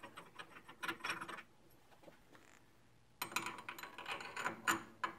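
Steel drawbar sliding into the hollow spindle of an Atlas horizontal mill, metal scraping and clinking against metal. A short spell of clinks about a second in, then a longer run of rattling clinks from about three seconds in until near the end.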